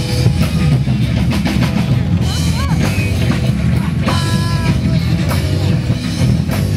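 Loud rock music with drums and guitar.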